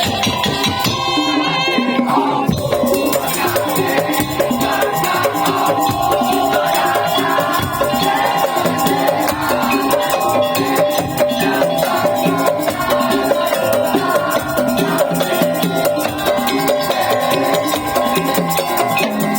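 Madurese tong-tong ensemble playing: a fast, dense rhythm of bamboo and wooden slit drums, hand drums and rattles, with a sustained melody line held over it.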